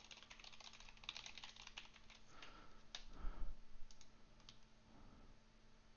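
Faint typing on a computer keyboard: a quick run of keystrokes in the first two seconds, then a few single clicks.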